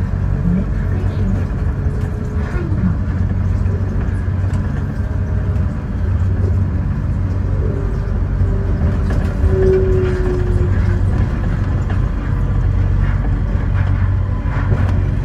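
Sengkang LRT rubber-tyred automated train running along its guideway: a steady low rumble, with a brief faint whine about two-thirds of the way in.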